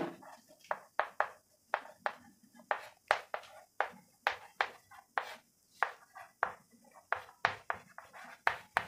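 Chalk writing on a chalkboard: an uneven run of short taps and scratchy strokes as letters are written out, with brief pauses between words.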